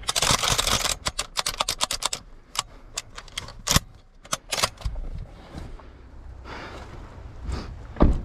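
Rapid, irregular clicking and rattling of gear and the camera being handled inside a truck cab, densest in the first second, then softer shuffling. A heavy thump comes near the end.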